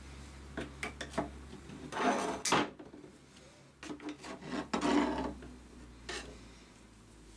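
Rusty steel files being pushed about with pliers in a shallow plastic tray of liquid: short clicks and scrapes as the files rub and knock against the tray and each other, with two longer scrapes about two and five seconds in.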